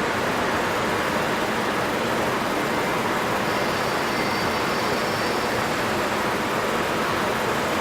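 Steady rushing of flowing water, an even, unbroken wash of noise.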